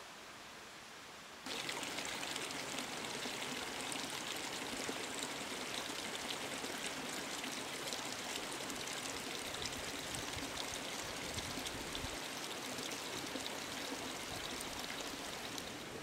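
Small stream of running water, a steady babbling rush full of fine splashes, cutting in suddenly about a second and a half in.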